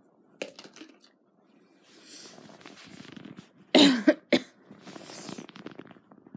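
A person coughing: one loud harsh cough about four seconds in, followed at once by a second short one, with softer noisy sounds before and after.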